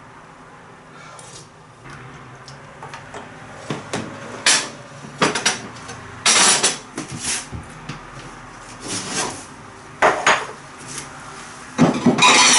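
A metal ladle and spoon clinking and scraping against a stainless steel saucepan as thick soup is ladled into a ceramic bowl. The sharp clinks and short scrapes come irregularly, beginning about four seconds in, with a longer scrape in the middle and a cluster of loud clinks near the end.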